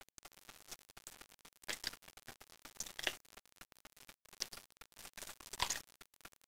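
Faint, irregular soft handling noises with a few light clicks, made by hands peeling the raw meat of a chicken drumstick down its bone.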